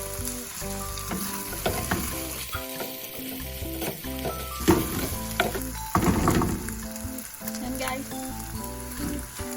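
Minced beef and mushrooms sizzling in a frying pan while a utensil stirs them, with a few sharp knocks and scrapes against the pan, the loudest about midway.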